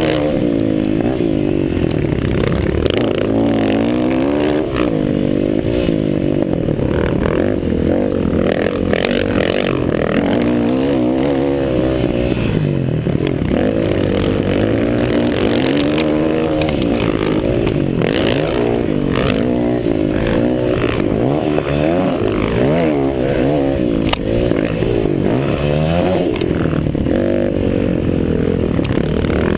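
Several motocross bikes racing together, their engines revving up and dropping back over and over as they accelerate and shift, several engine notes overlapping.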